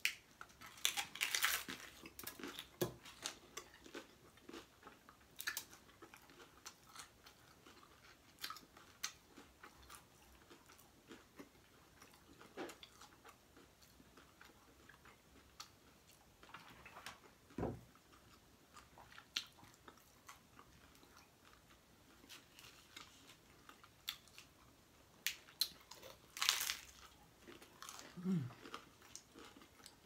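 Close-miked biting and chewing of crispy fried corn hard-shell tacos: irregular sharp crunches as the shell breaks, loudest about a second in and again near the end, with a couple of short falling hums of voice between bites.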